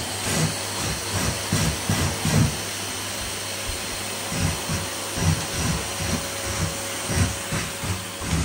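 Cylinder vacuum cleaner running steadily with a constant hum while its hose and wand are worked over hallway carpet.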